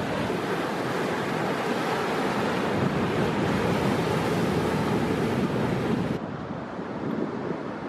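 Ocean surf breaking and washing over shoreline rocks, a steady rushing noise that drops a little and turns duller about six seconds in.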